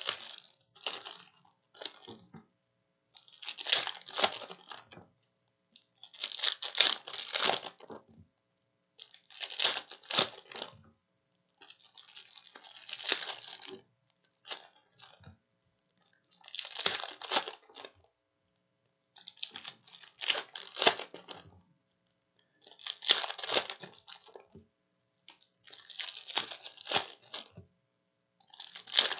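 Trading-card pack wrappers of plastic and foil being torn open and crinkled in the hands, one pack after another, about one every three seconds, each a short burst of tearing and crinkling with quiet gaps between.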